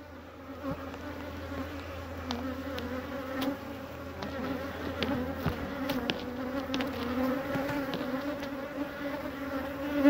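Many honeybees flying close around the microphone at an opened hive: a steady, low buzzing hum with scattered light clicks.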